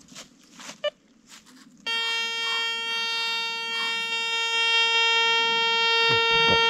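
Drötek MTXE metal detector giving a short beep, then about two seconds in a loud, steady, buzzy tone at one pitch. The tone is its pinpoint-mode signal while the coil is held over a buried target.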